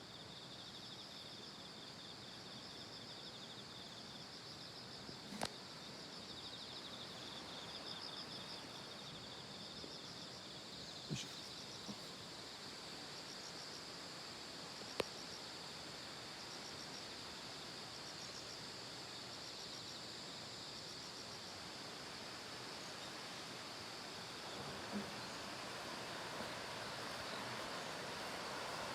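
Quiet outdoor ambience: a steady hiss, with repeated high-pitched chirping trills through most of the first twenty seconds and a few sharp clicks.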